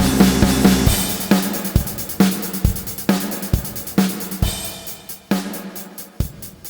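Instrumental ending of a post-punk-style rock arrangement: the fuller band sound drops away about a second in, leaving a drum kit playing a steady beat of kick and snare hits, a little over two a second, with cymbals, fading out gradually.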